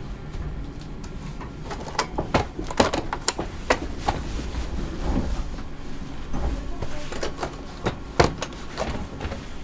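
Irregular plastic clicks and knocks of fold-down seat-back tray tables in a train carriage being opened and snapped shut, over a low steady hum.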